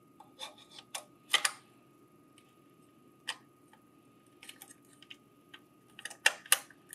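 Hard plastic clicks and taps as a plastic adapter cover is fitted onto a Lexmark convenience stapler's housing and pressed into place. The clicks are scattered, with a louder one about a second and a half in and a louder pair near the end.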